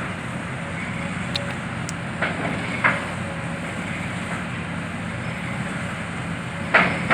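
Heavy excavator's diesel engine running steadily under load as it pulls on a cable, with a few short knocks from the demolition. Near the end a louder, sudden clatter breaks in.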